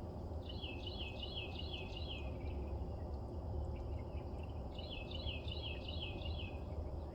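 Truck diesel engine idling with a steady low rumble, while a bird sings two short phrases of quick repeated chirps over it, near the start and again in the second half.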